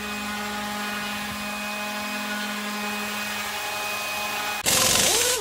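Table saw running with no load, a steady motor whine. About four and a half seconds in it turns much louder as the blade cuts into the teak board, the motor's pitch dropping and recovering again and again as it bogs under the cut.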